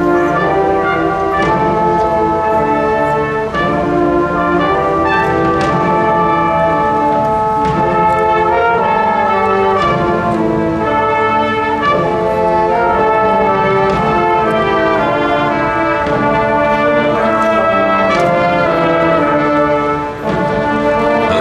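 Marching show band playing live: a brass section of trumpets and trombones sounding sustained chords and melody, with scattered percussion strokes.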